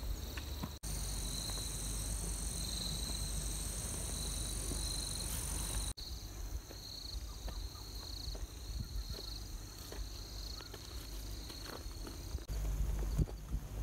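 Insects chirping in a high-pitched, pulsing chorus, joined for about five seconds by a thin, steady, higher whine, over a low rumble of wind on the microphone. The sound changes abruptly twice where takes are spliced together.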